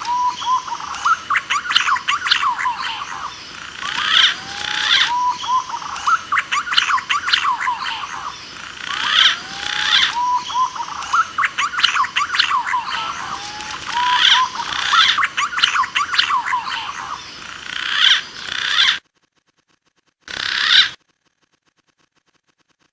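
Green pigeon lure call: whistled calls that rise in pitch and repeat every few seconds over dense, rapid chirping. The sound cuts off about 19 seconds in, returns for a short burst about a second later, then stops.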